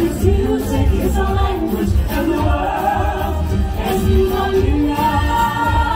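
Theme-park stage-show music: a choir of voices singing over a pulsing bass beat.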